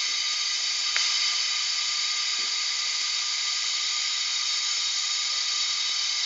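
Steady hiss of compressed air escaping from a rotary air-bearing test bed, with a few faint steady whining tones mixed in. A single light click about a second in.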